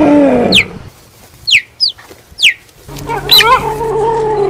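Cheetah chirping: four short, high, bird-like chirps, each dropping quickly in pitch. They come after a lower drawn-out call that ends about half a second in. Near the end a longer, lower call starts.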